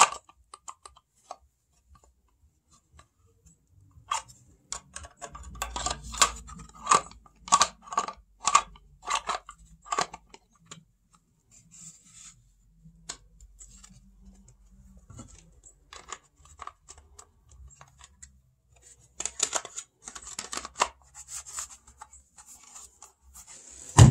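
Hard plastic clicks and clacks of a cordless-tool battery pack's case and cell block being handled and fitted back together. There is a quick run of clicks from about four to ten seconds in, scattered single clicks after that, and another cluster near the end.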